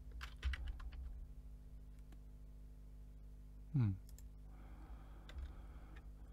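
Computer keyboard keystrokes and mouse clicks as values are typed into a field: a quick run of clicks about half a second in, then a few scattered ones. Just before four seconds a brief falling vocal sound, a short murmur, is the loudest thing; a steady low electrical hum lies underneath.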